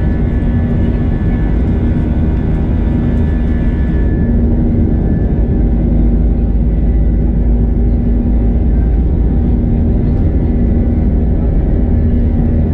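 Airbus A320-232 cabin noise: a loud, steady jet-engine and airflow rumble, heaviest in the bass, with a hum that swells and fades. The higher hiss drops away about four seconds in.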